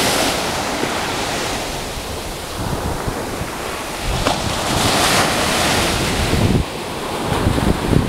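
Sea surf breaking and washing up on a beach: one wave rushes in at the start and another about four seconds in. Wind buffets the microphone in low rumbles near the end.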